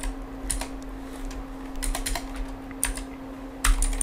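Computer keyboard keys clicking as a transaction code is typed: irregular keystrokes in small clusters, over a faint steady hum.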